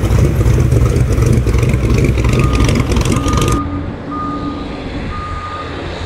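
A vehicle engine idling with a deep, loud rumble that cuts off abruptly a little past halfway. A reversing beeper sounds from about two seconds in, with half-second beeps about once a second.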